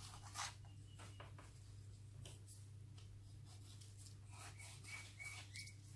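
Faint scratches and small taps from a thin stick worked around wet resin on a wooden clock face, over a low steady hum.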